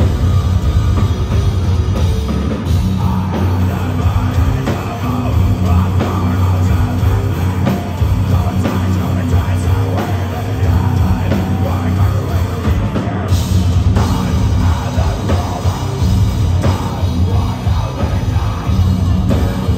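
A live heavy metal band playing at concert volume through a PA: distorted electric guitars, bass and drums, with a heavy low end.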